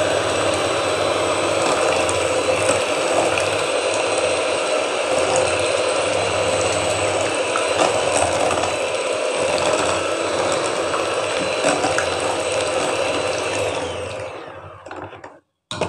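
Electric hand mixer running steadily, its beaters whisking a thin mango and milk mixture in a glass bowl. Near the end the motor winds down and stops, followed by one short knock.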